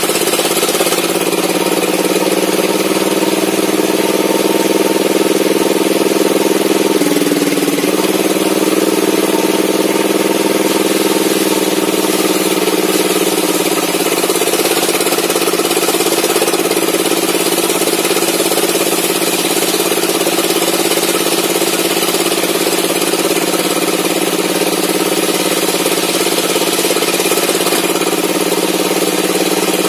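Homemade table saw running steadily as mahogany boards are fed through its circular blade, the blade's cutting noise over the hum of the drive. The pitch sags a little twice, at about 7 seconds and again around 12 seconds, as the blade takes the load of a cut.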